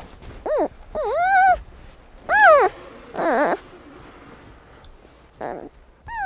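Giant panda cubs calling: a series of short, high calls, each about half a second long, rising and falling in pitch, with short pauses between them.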